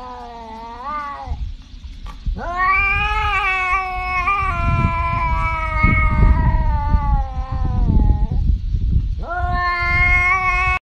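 Tabby cat meowing in long, drawn-out yowls: one fades out about a second in, a long wavering one runs from about two to eight seconds, and another near the end is cut off abruptly. A low rumble runs beneath the later calls.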